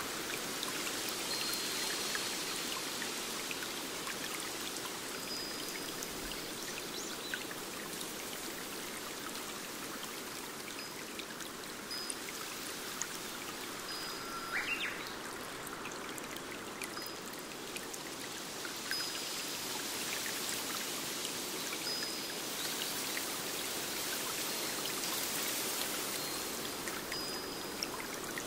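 Stream running steadily over rocks, with a bird giving short high whistled notes every few seconds and one lower, rising call about halfway through.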